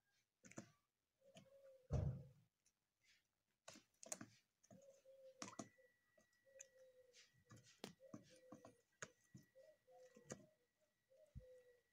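Turkeys pecking and tearing at a crate of sprouted wheat grass: a steady scatter of sharp beak clicks and snips, with short soft calls from the flock recurring throughout. A single louder thump about two seconds in.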